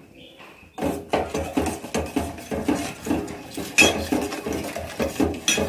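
A metal spoon stirring in a small stainless steel saucepan, mixing chutney powder into hot water. It scrapes and clinks against the sides in quick repeated strokes, about three a second, starting about a second in.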